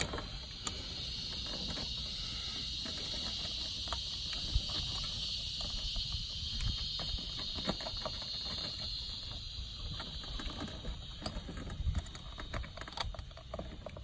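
Insects droning steadily in a high, even hiss that swells and then eases off. Scattered light clicks and rustles come from wires being handled at the condenser.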